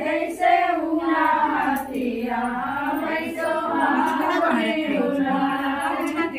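Several women's voices singing a song together, with no regular beat behind them.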